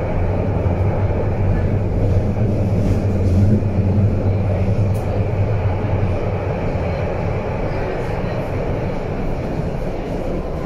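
BVG A3L71 U-Bahn train running, heard from inside the passenger car: a steady rumble of wheels on rail and running gear with a strong low hum, which is strongest in the first half and eases slightly later.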